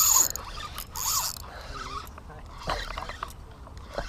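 Spinning reel working as a small jack is reeled in: two short spells of high whirring in the first second and a half, then quieter handling with a couple of sharp clicks.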